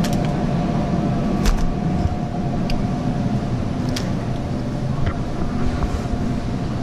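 Supermarket background: a steady low rumble and hum, as from refrigerated display cases and air handling, with a few light clicks, about a second and a half and four seconds in.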